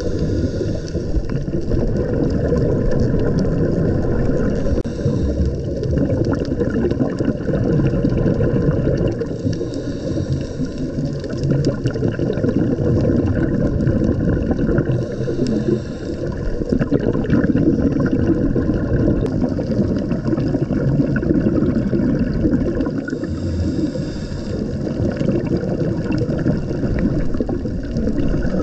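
Muffled underwater rumble and water noise picked up by a camera in a waterproof housing, with a brief hissing rush every few seconds.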